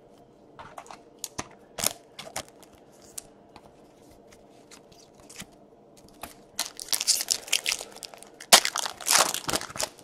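Trading-card pack wrapper being torn open and crinkled by hand: a few scattered crackles, then a denser run of crinkling in the second half.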